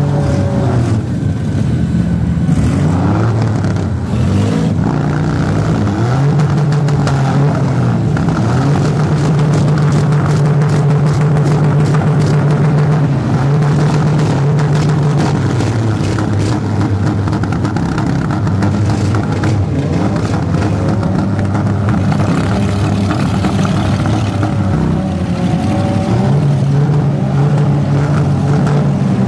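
Several minivan engines running and revving together, pitches rising and falling over a steady low engine drone, with occasional sharp knocks scattered through.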